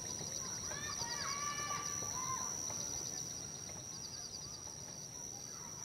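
Natural outdoor ambience. Insects keep up a steady high-pitched drone, with short trills repeating about once a second. A few bird calls come about a second in.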